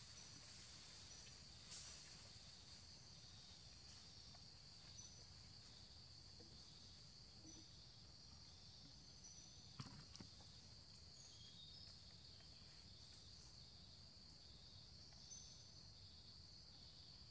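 Faint forest ambience: a steady, high-pitched insect drone with short chirps repeating over it and a low rumble beneath, plus faint knocks about two seconds in and again about ten seconds in.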